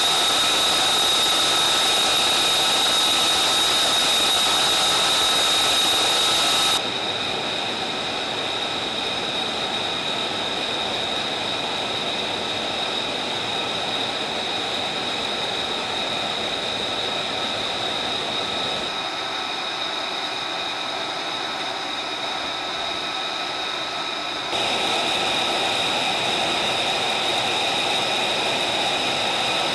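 F-35B's Pratt & Whitney F135 jet engine running at ground idle: a steady high-pitched whine over a rush of exhaust noise. It gets quieter about seven seconds in and louder again about five seconds before the end.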